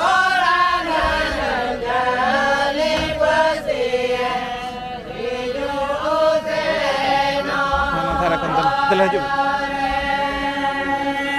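Singing through a handheld microphone in a chant-like style, with held notes that slide up and down, and several voices heard together. Low thumps sound now and then underneath.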